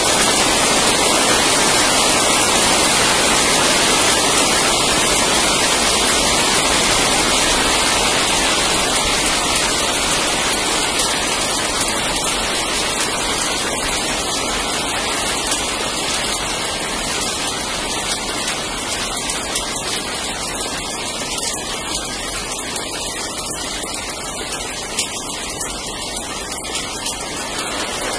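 Heavy rain falling steadily, a dense even hiss that eases gradually, with a few single drops ticking close by now and then.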